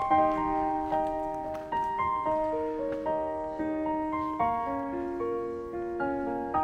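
Background piano music: a slow melody of struck notes that die away, several sounding together.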